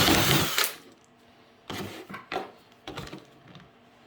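Power drill spinning a 1-3/8-inch hole saw through a plastic bucket lid; the cutting stops a little under a second in. It is followed by several light knocks and clatters as the plastic is handled.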